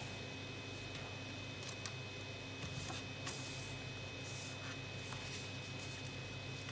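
Sheet of origami paper handled and folded by hand: a few faint rustles and soft crease taps over a steady background hum.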